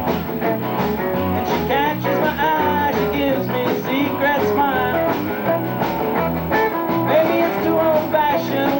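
Live rock and roll band playing an instrumental passage: electric lead guitar with bending notes over bass and drums.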